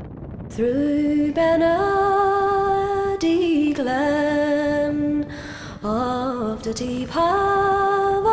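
Wind on the microphone, then about half a second in, background music comes in: a slow folk-style melody of long held notes.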